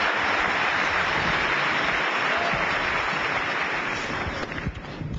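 Large audience applauding steadily, a dense even clapping that dies away about four and a half seconds in.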